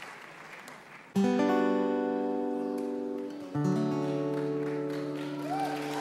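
Applause fading away, then acoustic guitar chords struck about a second in and again a few seconds later, each left to ring.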